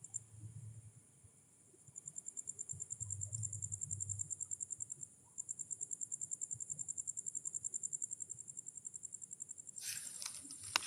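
A cricket-like insect calling: a high, rapidly pulsed trill that breaks off for a moment twice, then carries on. A brief rustle comes near the end.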